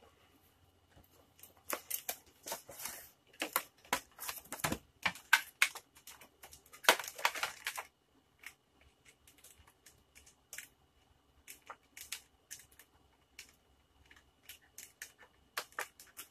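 Packaging being opened by hand: a cardboard box insert slid out, then clear plastic wrap crinkled and torn open around a figure. It comes as a dense run of short rustles and tears for the first half, thinning to scattered crinkles after that.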